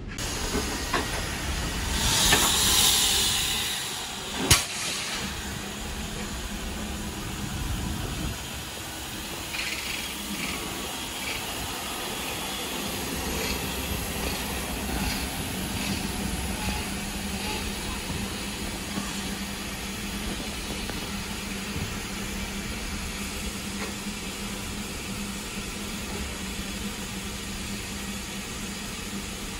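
Steam locomotive hissing loudly for a couple of seconds about two seconds in, then a single sharp clank, followed by steady train running noise with a low hum.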